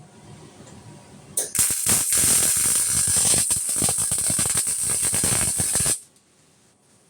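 Electric arc welding: the arc crackles and sputters loudly for about four seconds after a short click, then cuts off suddenly as the weld stops.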